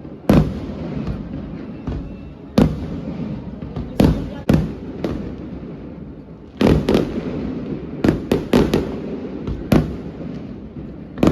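Fireworks going off: a string of loud bangs at irregular spacing, several coming in quick clusters, each trailing off in a rumbling echo.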